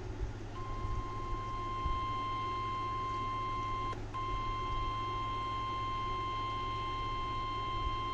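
NOAA Weather Radio 1050 Hz warning alarm tone: one long, steady, high beep broadcast ahead of a flash flood warning message, starting about half a second in and dropping out briefly about four seconds in. A low hum of the radio reception runs underneath.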